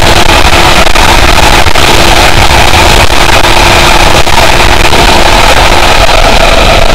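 Benelli TNT 600i's inline-four engine held at high revs at high speed, a steady high note almost buried under loud wind rush buffeting the microphone. The engine note drops out near the end.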